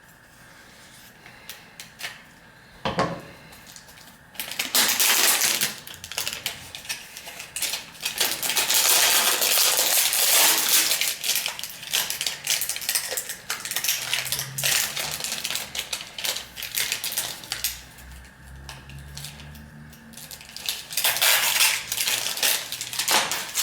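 Packaging of a new sharpening stone being opened and handled: crinkling and rustling of cardboard and wrapping, with small knocks and clatters. A sharp knock comes about three seconds in, with the heaviest rustling a couple of seconds later and again near the end.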